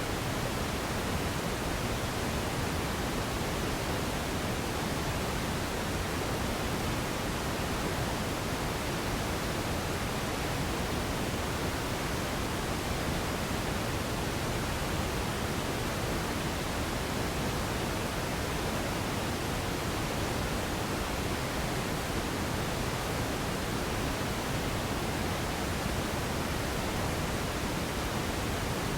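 Radio static: a steady, even hiss of noise with no tones, voices or crackles.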